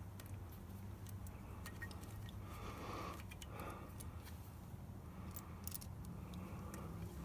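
Faint clicks and scrapes of a screwdriver working the screw of a carburettor intake-boot clamp, over a low steady hum.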